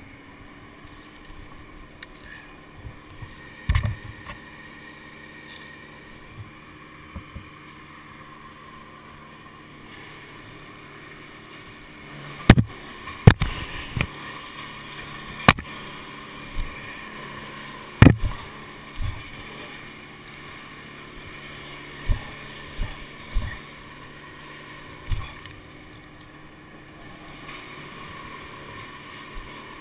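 Two-stroke chainsaw ticking over at idle after a cut, a steady low drone. Over it come several sharp knocks and clanks, mostly in the middle of the stretch.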